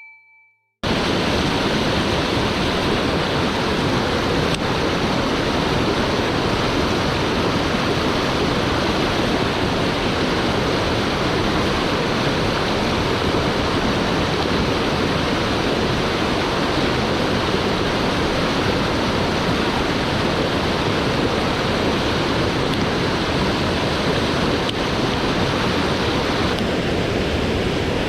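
Swollen mountain stream rushing steadily: a loud, even wash of fast water that starts abruptly under a second in.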